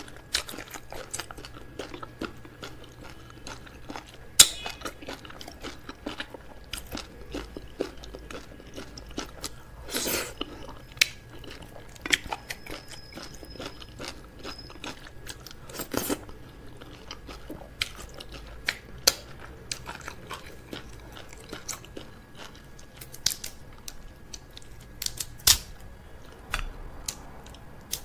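Close-miked chewing and biting, with irregular sharp crunching cracks of crab shell being bitten open. A few cracks stand out much louder, and there are a couple of longer, noisier smacks.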